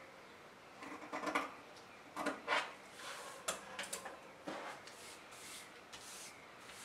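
Scissors snipping through pinned pattern pieces, in two short runs of cuts, then a sharp click as the scissors are set down. The cut pieces then rustle and slide across a wooden tabletop.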